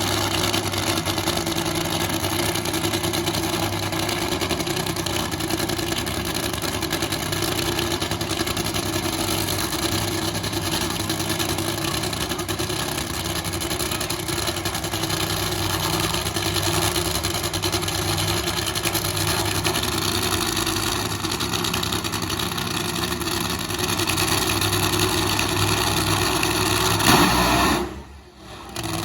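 A race car engine running steadily. It swells louder near the end, then cuts off abruptly.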